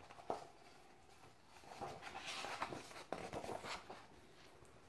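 A hardcover picture book being swung shut and handled: a soft knock, then a couple of seconds of paper and cover rustling with small clicks.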